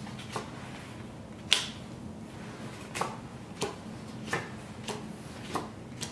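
Spanish playing cards being dealt one at a time onto a wooden table: a string of light snaps and taps, roughly one every half second to second, the loudest about one and a half seconds in.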